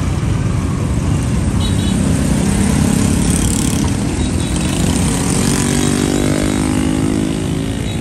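A motorbike engine running close by over a steady street rumble. It builds about two seconds in and fades away near the end.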